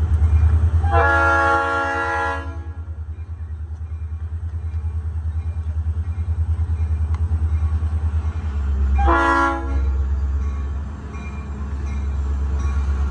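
Florida East Coast Railway diesel locomotive's multi-chime air horn sounding for the grade crossing as the train approaches: a long blast about a second in and a short blast about nine seconds in. A steady low rumble runs underneath.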